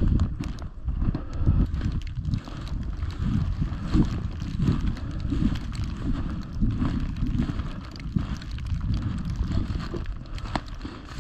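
A person walking through snow and dry grass and brush, with steady footfalls and rustling, and wind buffeting the microphone.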